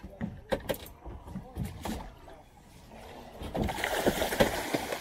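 Sea water rushing and splashing against a small fishing boat's hull in a heavy swell. It swells up and grows loud about three and a half seconds in, after a few scattered knocks.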